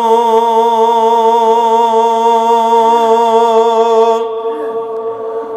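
A man's voice holding one long sung note with a slight vibrato, unaccompanied, fading after about four seconds: slow chanted devotional verse.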